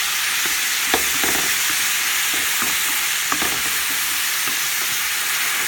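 Green beans sizzling in hot oil in a pan on high heat, with a steady hiss and scattered clicks and scrapes of them being stirred, a sharper knock about a second in and another past three seconds.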